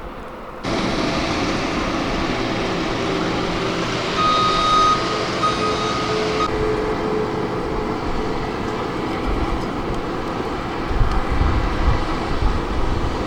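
Steady outdoor traffic noise from vehicles, with a steady tone sounding in short pieces around the middle and low rumbles near the end.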